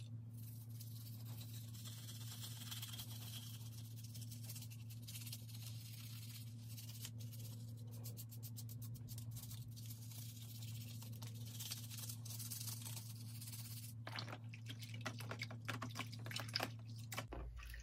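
Toothbrush bristles scrubbing a model-train frame in a tub of soapy water: a quick run of scratchy brushing strokes. From about three quarters of the way in there is louder splashing in the water. A steady low hum runs underneath.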